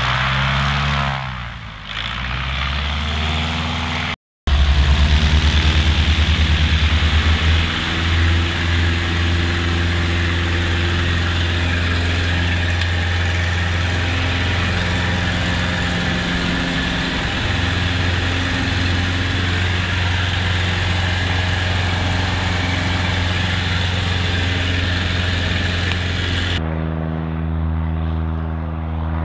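Piper Cub bush plane's piston engine and propeller. The engine note falls in pitch over the first few seconds. After a brief dropout it is loud and steady from inside the cockpit at high power, with a throbbing propeller beat and a few small shifts in pitch. Near the end the tone changes as it is heard from outside again.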